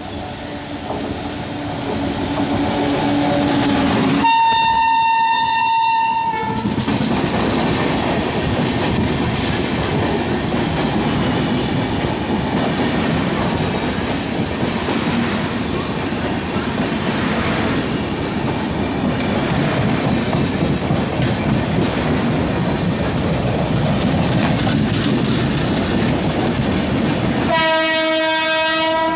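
An electric locomotive sounds a high horn for about two seconds as it approaches at speed. Its train of LHB coaches then rushes past, with steady wheel and track noise and clatter over rail joints. A second, lower-pitched train horn sounds near the end.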